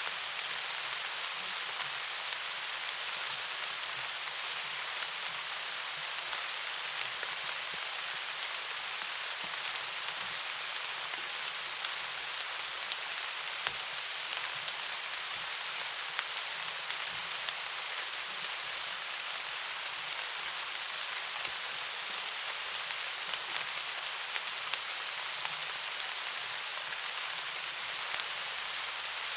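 Steady rain falling, an even hiss throughout, with scattered sharper taps of individual drops.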